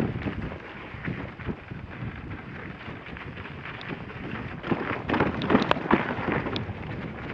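Dog sled moving over snow: a steady scraping rush from the runners and wind on the microphone, with a flurry of sharp crunches and clicks about five seconds in.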